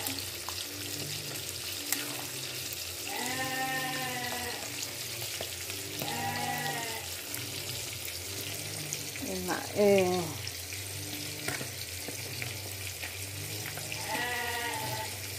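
Salted tilapia frying in oil in a wok, a steady sizzle, while a metal ladle stirs a pot of clear vegetable soup. Over it come three drawn-out calls of about a second each, and a short spoken word near the middle.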